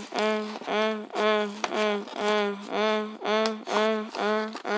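A voice chanting one syllable over and over on the same note, about twice a second, with faint clicks of plastic packaging being handled.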